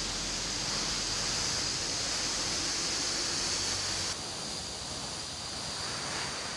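Steady hiss of air jetting from a narrow tube onto a small plastic turbine wheel, spinning a DC motor. The hiss drops a little about four seconds in.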